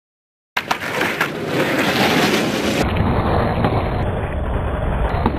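Skateboard wheels rolling over rough pavement, with wind on the microphone, cutting in suddenly about half a second in. A few sharp clacks of the board come soon after.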